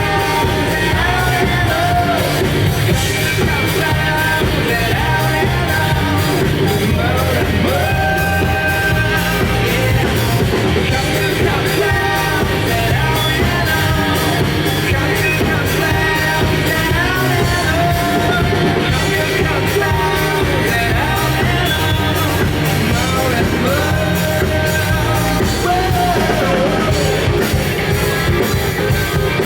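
Rock band playing live through a PA, with a male lead vocal singing over drums, bass and guitars.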